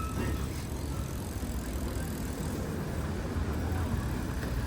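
Street ambience: a steady low rumble of passing road traffic, with no one speaking.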